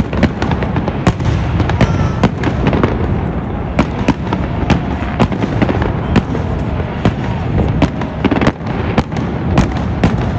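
Aerial firework shells bursting in a continuous barrage: many sharp bangs, about two a second, over a steady low rumble.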